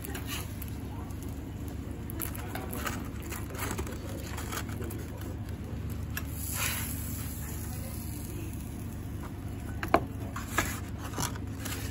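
Egg frying on a flat-top griddle, crackling and spitting over a steady low kitchen hum, with two sharp clicks about ten seconds in.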